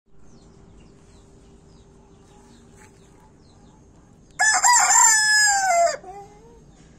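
Gold Silkie rooster crowing once: a loud crow of about a second and a half starting midway, its pitch falling at the end, with a short, quieter trailing note after it.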